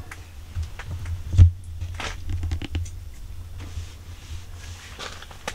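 Handling and movement noise: scattered knocks and scrapes over a steady low rumble, with one loud thump about a second and a half in.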